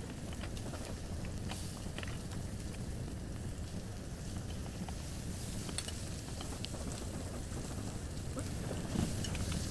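Meat sizzling on a tabletop Korean barbecue grill, over a steady low hum. Scattered light clicks of tongs and chopsticks on metal dishes, with a slightly louder clink near the end.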